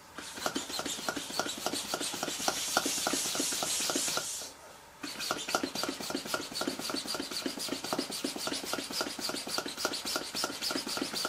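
Hand balloon pump being worked in quick, even strokes, each one a rasping rush of air, as it blows up a latex balloon. The pumping stops briefly a little before halfway and then carries on.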